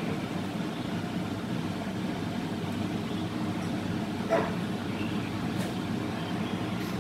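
Steady low mechanical hum, with one short sound about four and a half seconds in.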